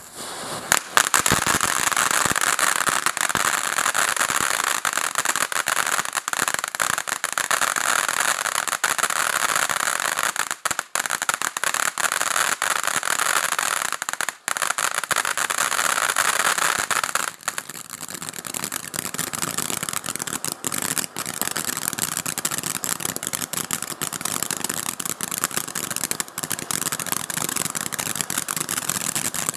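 Ground fountain firework (HoneyBoom Super Purple Rain) spraying sparks: a loud, steady rushing hiss that starts about a second in. About seventeen seconds in it turns a little quieter and thinner, with a higher-pitched hiss.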